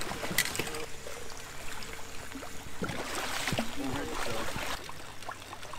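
Water splashing as a striped bass is grabbed by the lip at the side of the boat, loudest from about three seconds in, over rain pattering on the lake.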